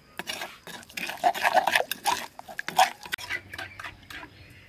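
Metal spoon stirring a wet chili, lime juice and fish sauce mixture in a wooden mortar, with quick scrapes and taps against the mortar's sides. It is busiest in the middle and stops shortly before the end.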